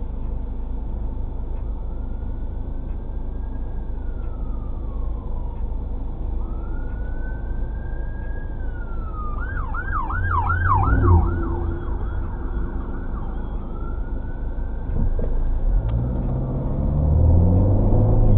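Emergency vehicle siren heard from inside a car waiting at a light: a slow rising and falling wail that switches about halfway through to a fast yelp, about four sweeps a second for two seconds, then returns to the wail. Near the end the car's engine and road rumble grow louder as it pulls away.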